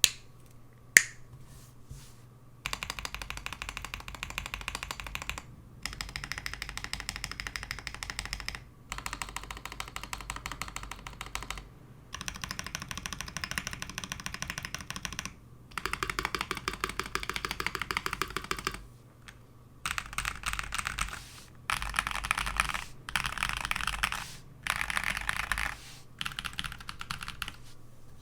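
Typing on a mechanical keyboard fitted with Harimau tactile switches with long springs. After a single sharp click about a second in, rapid keystrokes come in bursts of two to four seconds with short pauses between them.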